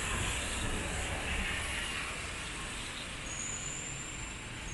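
Wet city street ambience: a steady hiss of rain and passing traffic, with a thin high whine for a second or so near the end.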